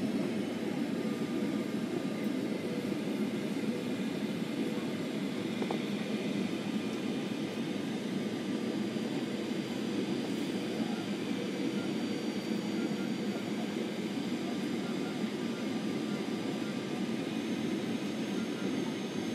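Steady cabin noise of a jet airliner descending on landing approach: engine hum and rushing air heard from inside the cabin. A faint high whine joins near the end.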